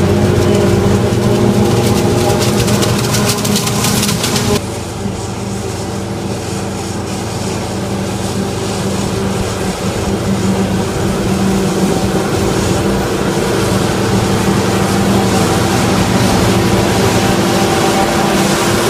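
Deutz Agrotron 7250 tractor's diesel engine running steadily under load while it drives a Dion forage harvester chopping standing maize. The sound changes abruptly about four and a half seconds in, then grows louder as the machine comes closer.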